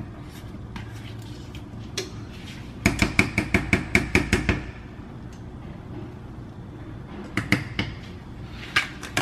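A spoon knocking against a saucepan, a quick run of about a dozen taps as a scoop of butter is shaken off into the pot, then a few lighter single taps near the end.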